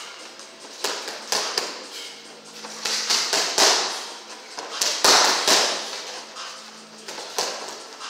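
Boxing gloves striking focus mitts: sharp smacks in quick combinations of two to four, with short pauses between.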